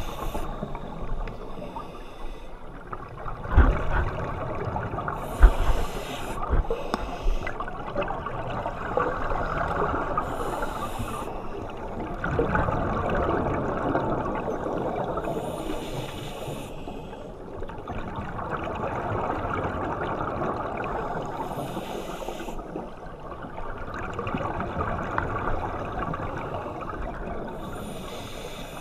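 Scuba regulator breathing recorded underwater: a diver's exhaled bubbles rush and gurgle in short bursts every five or six seconds over a steady low underwater wash. A few dull knocks come in the first few seconds.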